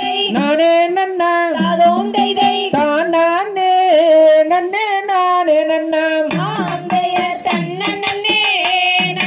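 Tamil valli kummi folk song: a voice singing a gliding, ornamented melody over percussion, starting suddenly at the beginning.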